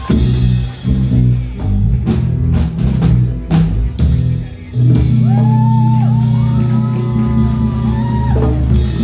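Live band music through a PA system: electric guitar, drum kit and congas. A run of drum hits fills the first half, then a long held bass note carries a melody line from about five seconds in.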